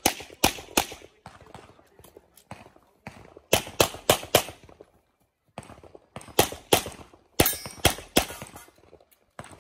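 Pistol shots fired in quick strings of two to four, with short pauses between strings and a brief lull about five seconds in.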